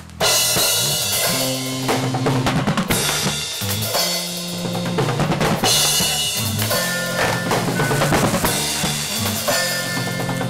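Rock band music with drum kit, bass guitar and lead electric guitar, kicking in suddenly right at the start and carrying on at a steady level.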